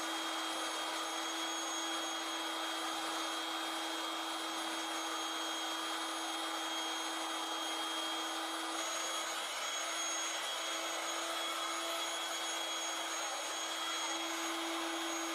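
Electric air mattress inflator switched on and running steadily with a constant hum and rush of air, blowing up an inflatable kiddie pool.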